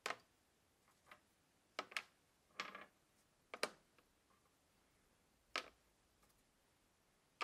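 Small metal bicycle-saddle clamp parts clicking and knocking as they are set down one at a time in a plastic tub, about seven separate sharp clicks with quiet between them.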